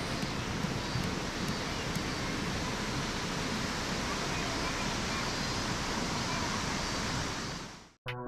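Steady rushing water of a mountain stream, an even hiss with no distinct splashes. It fades out quickly near the end.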